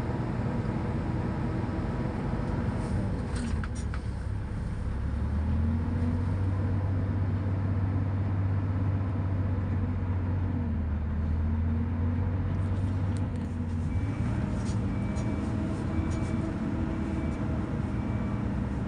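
Heavy diesel truck engine running under load, heard from inside a vehicle cab, its pitch rising and falling as it pulls along. From about thirteen seconds in, a high beep repeats about once a second over the engine.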